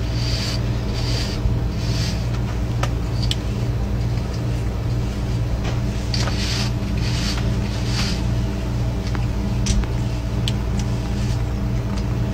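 Domestic cat purring loudly and steadily close to the microphone, the purr swelling and easing about every half second as it breathes in and out. Runs of short scratchy strokes, a brush or hand going through its fur, come over it at the start and again about six seconds in.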